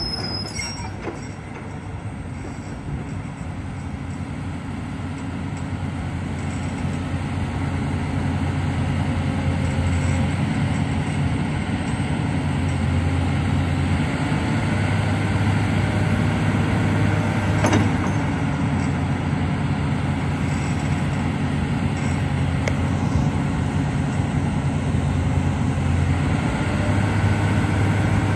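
Komatsu PC360-10 excavator's six-cylinder diesel engine running steadily, its note swelling louder in stretches as the hydraulics take load, working the boom and arm out and back up. There is a short sharp click about 18 seconds in.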